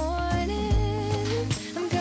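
Background pop music: a melody over a steady bass line, with a beat about twice a second.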